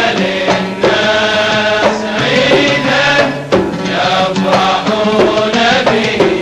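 Kuwaiti sawt song: male voices singing over oud, with sharp percussion strikes keeping the rhythm.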